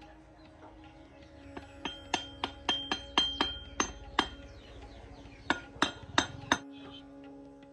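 Sharp metallic clinks with a short ring: a run of about eight quick taps, then a pause, then four more, with background music underneath.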